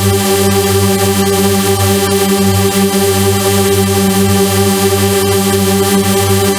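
Loud electronic synthesizer drone holding the same steady tones throughout, with a harsh hiss over the top.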